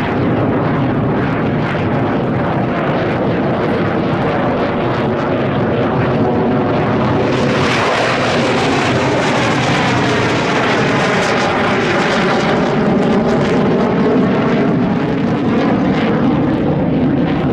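Chengdu J-10 fighter jets' engines roaring steadily in a display, swelling about seven seconds in as they pass close, with a sweeping whoosh in the tone, then easing off.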